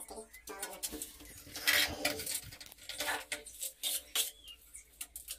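Tile-setting work: a run of short scrapes and clinks of hard tools and ceramic tiles knocking against each other, loudest just under two seconds in.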